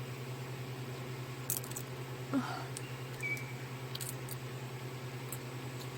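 Crisp rice-paper pizza being bitten and chewed: a few sharp, irregular crunches over a steady low hum.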